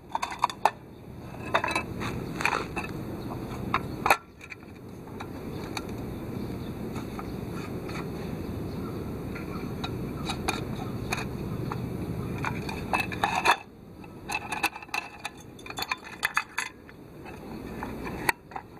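Clinks, clicks and scrapes of thin sheet metal and brass fittings as a British Army No. 7 cooker is handled and its tin case folded shut. A steady low rushing sound runs through the middle and cuts off suddenly about two thirds of the way in.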